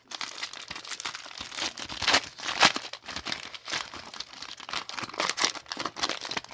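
Trading-card booster pack wrappers crinkling and crackling as packs are handled and torn open, with the loudest crackles a little after two seconds and again just after.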